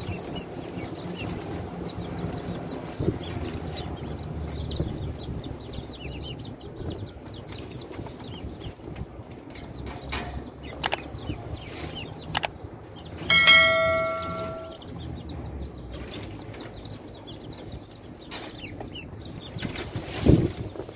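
Many chicks and ducklings peeping continuously in short, high, falling notes. About ten seconds in come a few sharp clicks, followed by a loud bell-like ding from an animated subscribe-button sound effect. A thump sounds near the end.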